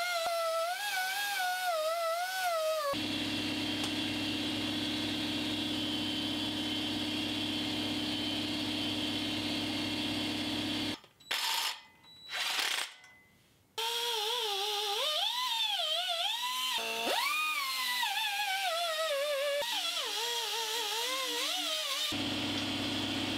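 Background music: a lead melody with a wobbling, sliding pitch, alternating with stretches of steady sustained tones, and a brief drop-out about eleven seconds in.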